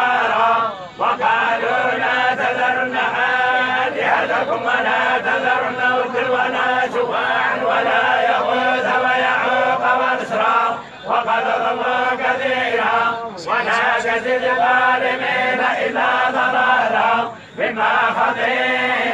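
Quran recitation chanted in men's voices: long, slowly bending melodic phrases, broken by short breath pauses about four times.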